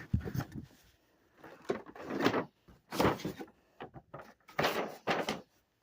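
Cardboard box being opened and handled: about five short scraping, rustling strokes with brief pauses between them.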